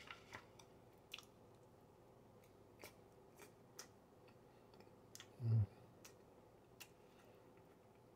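Faint chewing of a mouthful of coconut cream pie: scattered soft mouth clicks and smacks. A short low hum comes about five and a half seconds in.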